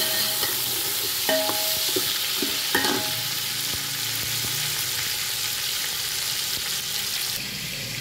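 Chicken pieces and halved tomatoes sizzling and frying in hot oil in an aluminium pot, stirred with a metal ladle that scrapes and rings against the pot about a second in and again near three seconds.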